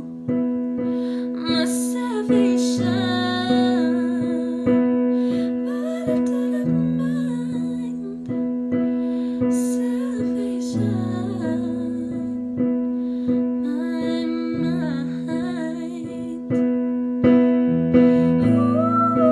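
A teenage girl singing a slow ballad solo over piano accompaniment, the chords struck again about every half second over a slowly changing bass line.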